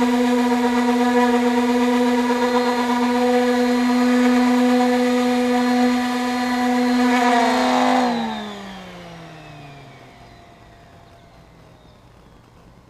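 A handheld rotary power tool fitted with a sanding pad runs at steady full speed with a high whine. About eight seconds in it is switched off, and its pitch falls away over a couple of seconds as it spins down.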